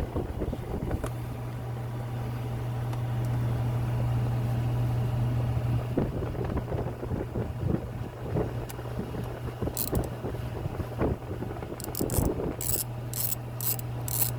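A hand tool loosening the T30 Torx screws behind a steering-wheel airbag: scattered knocks and handling noises, then a quick run of sharp clicks near the end, over a steady low hum.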